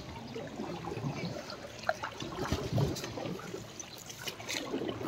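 Floodwater trickling and lapping, with scattered small splashes and knocks.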